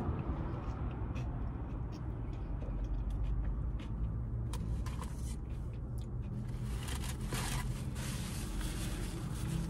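Close mouth sounds of chewing a piece of battered fried fish, with small wet clicks, over a steady low hum in a car cabin. Paper rustles and crinkles near the end.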